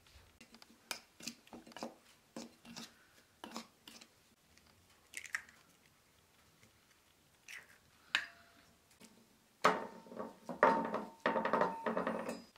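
Kitchen handling sounds during food preparation: scattered light taps and clicks of bowls and utensils, then a louder run of clatter in the last few seconds with a brief ringing of metal, as from a steel bowl.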